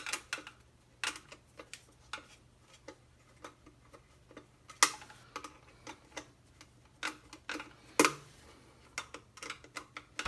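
Screwdriver tightening the cord clamp screws on a garbage disposal, with metal parts clicking: a run of small irregular clicks, with two louder ones about 5 and 8 seconds in.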